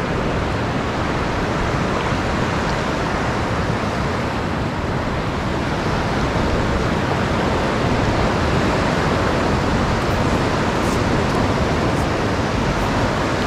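Ocean surf breaking and washing up a flat sandy beach: a steady rush of noise.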